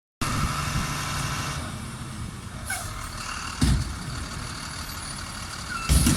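Garbage truck engine running steadily, with a short hiss and two heavy low thumps about three and a half and six seconds in.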